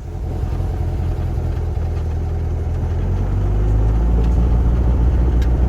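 An engine running steadily, getting louder about three seconds in.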